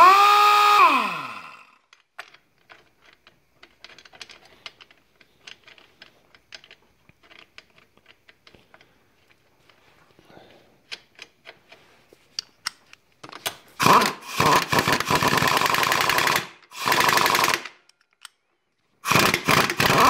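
Ingersoll Rand 2235TiMAX half-inch air impact wrench hammering on a dirt bike axle nut in short bursts, with no power, which the owner blames on a restrictive air fitting starving it of air. A burst winds down in the first second or so. Faint clicks and taps follow, then three more bursts of hammering from about 14 s on, the last winding down near the end.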